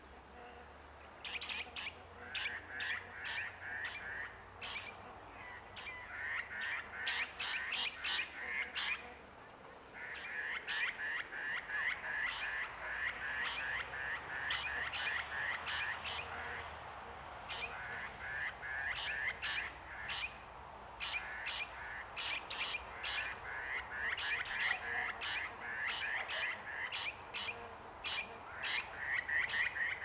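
Small birds giving mobbing alarm calls at a perched barn owl: harsh, rapid chattering and sharp repeated calls in runs of several seconds, with brief lulls about nine and seventeen seconds in.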